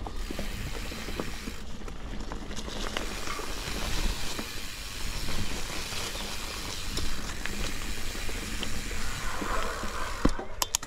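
Mountain bike riding along an overgrown dirt singletrack: steady tyre and trail noise with a low rumble, and scattered clicks and rattles from the bike over the rough ground.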